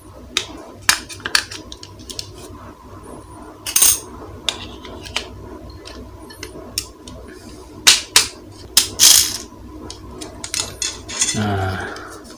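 AA batteries being pressed into the plastic battery compartment of a vintage toy RC car: an irregular run of sharp clicks and clacks as the cells snap against the metal terminals, the loudest about four seconds in and again around eight to nine seconds in.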